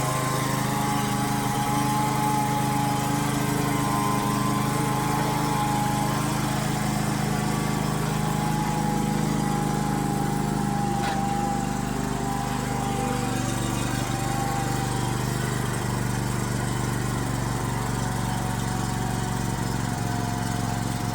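Engine of a professional lawn mower running steadily at an even pitch.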